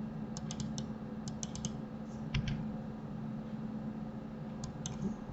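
Computer keyboard keys pressed in short quick runs of clicks, with a single heavier click near the middle and two more near the end, while Blender hotkeys such as scale are being entered. A steady low hum runs underneath.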